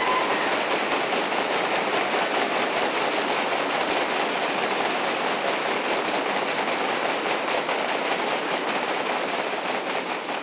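A banquet audience applauding steadily after a guest at the head table is introduced, with the clapping starting to die away at the very end.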